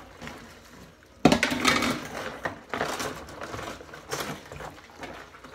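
Dishes clattering in a stainless-steel kitchen sink as they are handwashed and set down heavily: one loud knock about a second in, then a run of smaller knocks and clinks.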